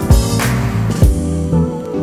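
Background music: a pop track with a low kick drum on the beat. The drums drop out after about a second, leaving softer held chords.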